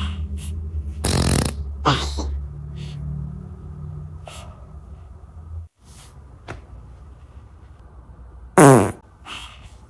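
A series of short fart sounds spaced a second or two apart, the loudest near the end a blast that falls in pitch. A low steady hum runs underneath and cuts off abruptly about halfway through.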